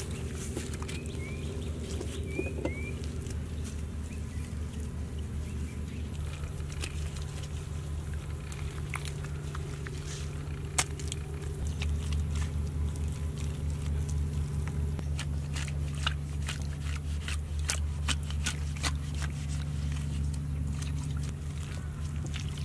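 Hands patting and smoothing wet mud, heard as scattered soft slaps and taps that come more often in the second half. A steady low hum runs underneath.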